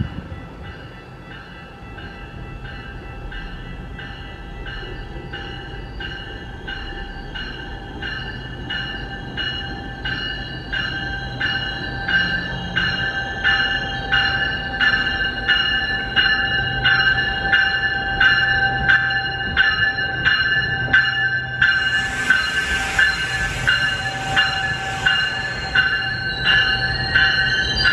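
GO Transit bilevel commuter train pulling into the station with its bell ringing steadily, about one and a half to two strokes a second, over the low rumble of the train, growing louder as it draws in. A few seconds of hissing air come about three-quarters of the way through.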